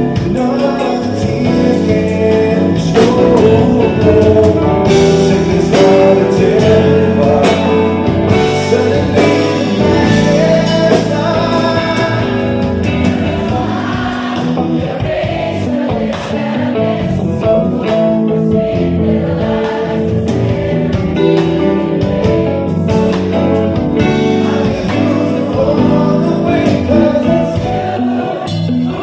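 A live band plays a slow ballad on electric guitar, bass guitar and drums, with voices singing over it.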